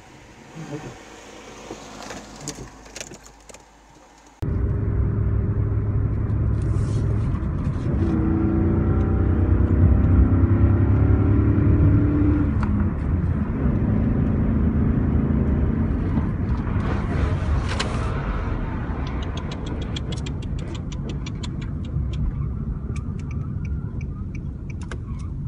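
Car cabin noise: a car's engine and tyres rumble steadily at speed, the engine note rising as it accelerates. It starts abruptly after a quieter first few seconds, and a rapid run of ticks comes near the end.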